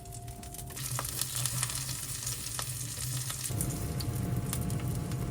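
Kimchi pancake (kimchijeon) frying in oil in a pan: a steady sizzle that swells about a second in, with scattered sharp pops.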